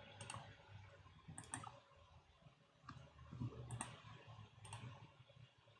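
Faint computer mouse clicks, a handful of single and paired clicks spaced about a second apart, over otherwise near-silent room tone.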